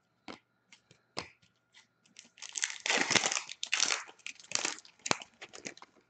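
A few light clicks of card handling, then from a little past two seconds a run of crinkling and tearing: a foil hockey card pack wrapper being ripped open and crumpled.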